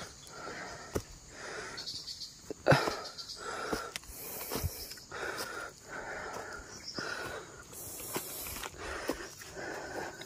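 A person's heavy, rhythmic breathing while walking, with footsteps and rustling in dry leaf litter and a few sharper knocks.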